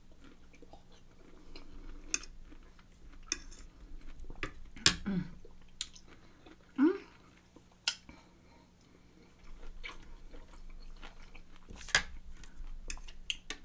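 A person chewing and biting soft, juicy canned pineapple slices with mustard, with wet mouth sounds and a few scattered sharp clicks. A short rising tone comes about seven seconds in.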